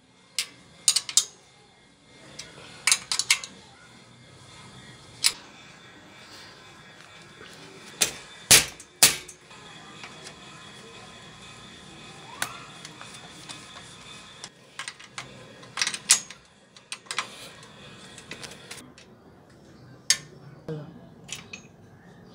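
Scattered metallic clinks and knocks of a wrench and bicycle parts against a steel bicycle frame during reassembly. Three loud sharp knocks come about eight to nine seconds in, with smaller clusters of clicks later.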